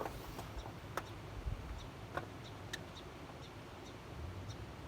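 Quiet outdoor background with scattered short bird chirps and a few sharp light clicks or taps, one about a second in and one about two seconds in.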